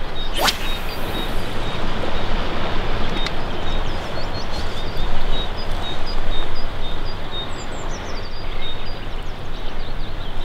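Steady rushing noise of a fast-flowing river with wind on the microphone, and small birds chirping high over it. About half a second in, a brief sharp swish.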